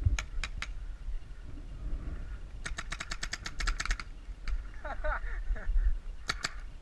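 Paintball marker firing sharp pops: three shots at the start, then a rapid string of about a dozen shots in just over a second, one more, and two quick shots near the end.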